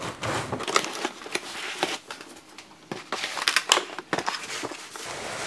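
Cardboard packaging rustling and scraping, with scattered light knocks and clicks, as a boxed desktop laser cutter is lifted out of its carton.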